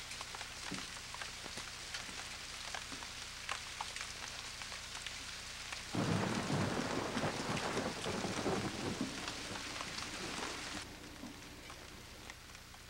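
Steady rain hiss with scattered light clicks. About halfway through a deep thunder rumble starts suddenly, runs for about five seconds, then cuts off abruptly.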